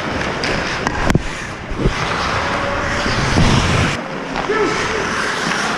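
Ice hockey play heard from a goalie-mounted action camera: a steady hiss of skates and rink noise, with two sharp cracks of stick or puck about a second in.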